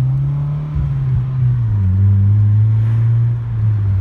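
Honda Civic engine heard from inside the cabin while driving: its note climbs a little, falls about two seconds in, then runs steadily.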